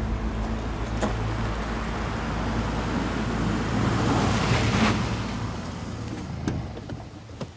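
An SUV driving along a road, engine and tyres on tarmac, growing loudest as it passes close about four to five seconds in, then easing off as it slows to a stop. A couple of sharp clicks near the end.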